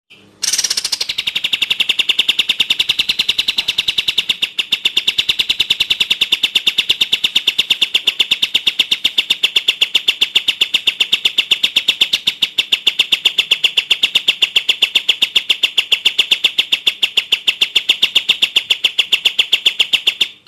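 Cililin (crested jay) giving a long, steady rattle of fast, evenly repeated sharp notes, starting about half a second in and running on without a break.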